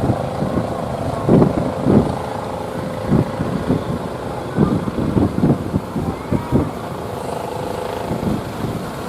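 Fishing boat engine running at a steady pitch, with irregular gusts of wind buffeting the microphone.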